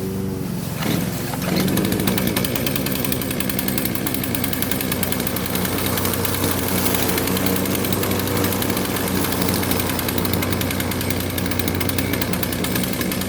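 Two-stroke gasoline chainsaw engine idling steadily, with no revving.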